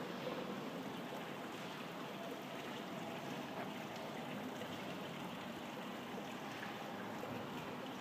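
Steady, even rushing noise of a factory hall, with no distinct knocks or tones.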